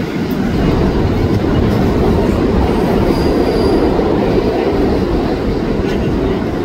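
Steady low rumble of city street traffic, with a faint, brief high squeal about three seconds in.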